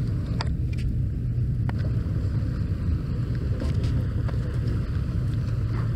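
Steady low rumble of a boat's engine idling, with a few faint clicks over it.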